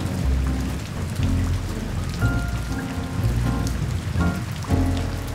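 Heavy rain falling against a window pane: a steady hiss packed with many small drop ticks, over a low rumble.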